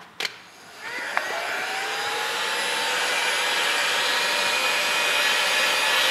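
Electric heat gun switched on: a couple of clicks, then its fan motor spins up with a rising whine that settles into a steady tone over the rush of blowing air, growing slightly louder, as it heats a scooter's CVT driven pulley.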